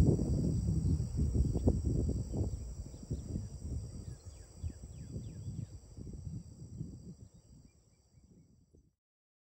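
Low wind rumble on the microphone over a steady high insect chorus, with a bird giving a run of short falling chirps midway; the rumble dies away and everything fades out near the end.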